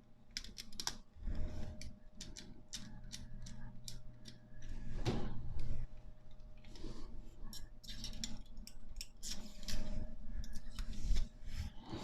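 Steel spokes clicking and ticking irregularly against each other and the hub and rim as a Raleigh Chopper rear wheel is laced by hand.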